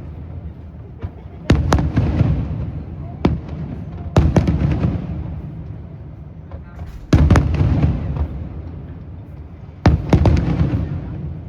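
Fireworks shells bursting overhead: sharp bangs, often two or three close together, every two to three seconds, each followed by a long rumbling echo that dies away.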